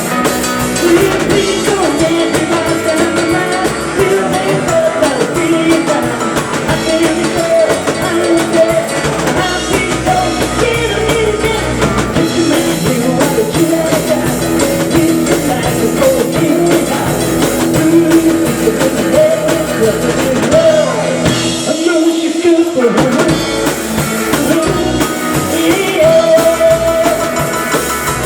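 Live rock and roll band playing, with a drum kit, electric guitar and a singing voice. About three-quarters of the way through, the bass and drums drop out for a moment before the full band comes back in.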